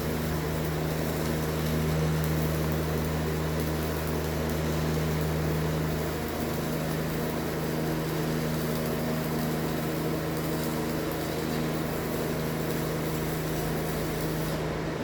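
Welding equipment running during stainless flange welding: a steady electrical hum over an even hiss, unchanging throughout.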